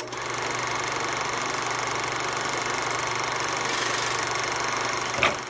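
A steady mechanical whirring rattle, like a small machine running, with a sharp click near the end.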